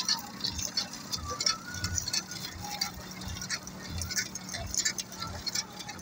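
Irregular light clinks and rattles over a faint steady engine hum, from a tractor-drawn bitumen sprayer at work on a gravel road surface.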